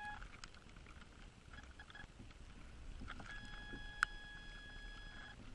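Faint steady electronic tone that starts about three seconds in and stops near the end, with one sharp click about four seconds in, over a faint hiss.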